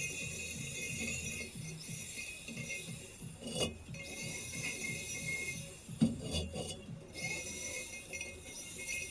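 Background music with jingling bell tones over a steady rhythmic beat, broken by two brief knocks.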